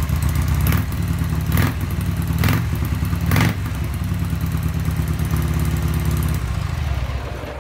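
Harley-Davidson Sportster's air-cooled V-twin running just after being started on its newly installed battery, with a sharper burst about once a second over the first few seconds. The running note goes quieter near the end.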